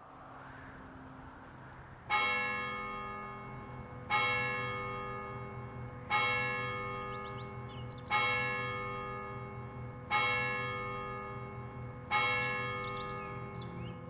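A large church bell tolling, six strikes about two seconds apart, each ringing on and fading before the next. A soft swell of outdoor ambience comes in over the first two seconds, before the first strike.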